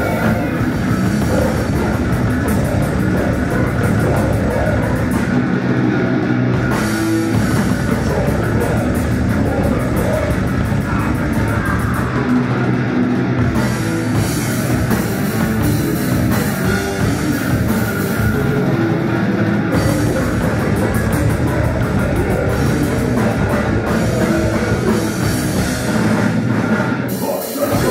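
Heavy/thrash metal band playing loud and live: a drum kit with crashing cymbals, distorted electric guitars and bass, captured by a room recorder.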